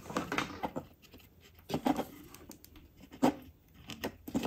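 Close-up handling noises: irregular small clicks and rustles as fingers move fine hookup wires and capacitor leads into place for soldering.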